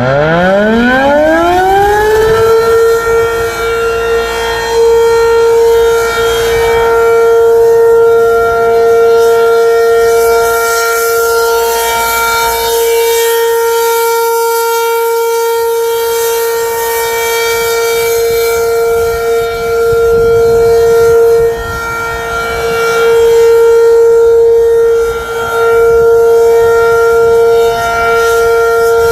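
ACA Penetrator-15 tornado siren, driven by a 15 HP three-phase motor with an 8-port chopper, sounding the alert signal. It winds up from a low growl to a high pitch within about two and a half seconds, then holds one steady tone whose loudness swells and dips a little.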